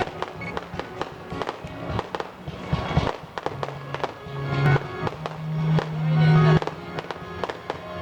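Fireworks finale: a rapid string of aerial shell bursts and crackles, over music played through loudspeakers with sustained low notes that swell about five seconds in.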